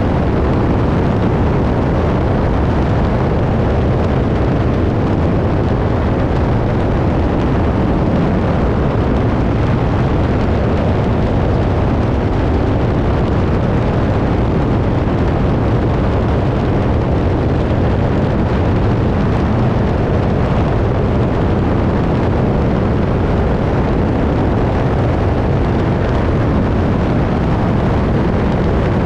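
Biplane engine running steadily in flight, heard through heavy wind rush buffeting a tail-mounted camera's microphone; a loud, unbroken drone with no change in pitch.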